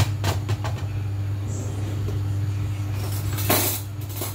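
Dishes and utensils being handled on a kitchen counter: a few quick clicks and knocks in the first second and a short scraping rustle about three and a half seconds in, over a steady low hum.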